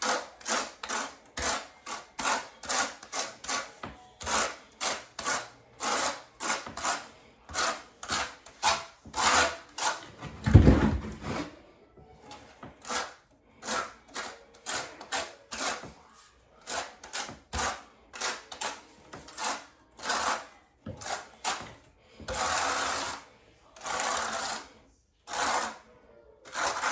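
Trowel scraping through thinset mortar in quick repeated strokes, about two a second, with one low thud about ten seconds in and two longer scrapes a little over two-thirds of the way through.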